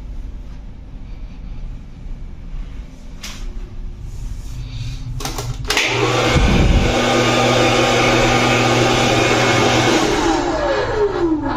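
Wall-mounted Valera hotel hair dryer switched on with a click about halfway in and running with a loud, steady blowing whir and motor hum. Near the end it is switched off and the motor spins down with a falling whine.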